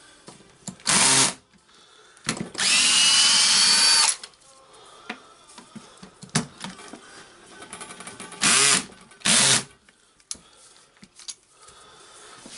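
Cordless drill-driver running in bursts as it unscrews the gearbox housing screws of a Hilti TE56 hammer drill. There is a short burst about a second in, then a longer one whose pitch rises as the motor speeds up, then two short bursts near the end. Between the bursts there is light clatter of handling.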